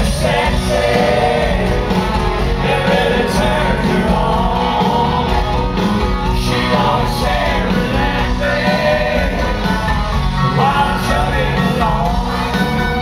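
Country band performing live, with a singer's voice carried over the band, loud and continuous.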